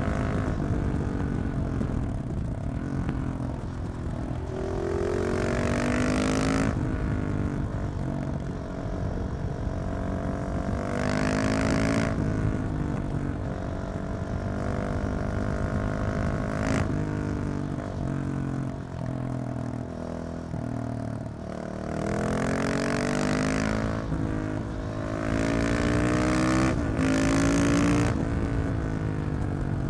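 KTM 690 SMC R's single-cylinder LC4 engine breathing through a Leovince exhaust with the catalyst removed, ridden hard: the engine note climbs under acceleration and drops sharply at each upshift, several times over, between stretches of steadier running.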